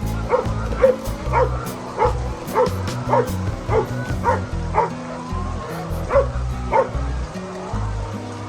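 A dozen or so short animal calls in quick succession, about two a second with a brief pause past the middle, over background music.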